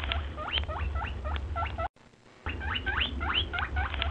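Rabbit squeaking: quick high rising squeaks, about four a second, in two runs broken by a short gap about two seconds in, over a low rumble.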